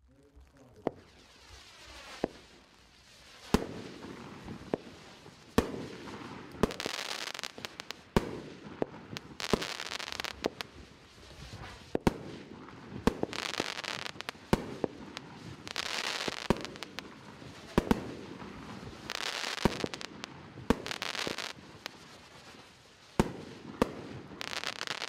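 Consumer firework cake firing: a string of sharp shots, one every one to two seconds, each with about a second of hissing noise between them. It starts faintly and grows louder within the first few seconds.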